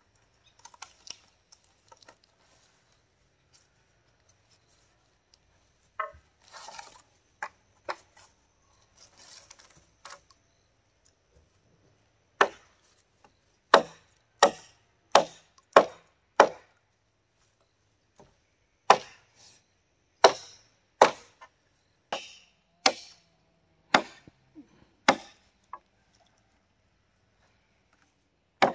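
Machete chopping into a wooden pole: after a quiet start with faint rustling, a run of sharp single chops about one and a half a second, a short pause, then a second run of chops.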